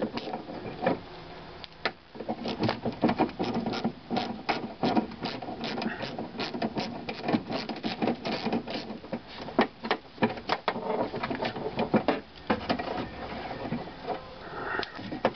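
Socket ratchet clicking in irregular runs of sharp clicks as two 10 mm bolts holding the door glass to the window regulator are backed out, with small metal clinks of the tool and loosened parts.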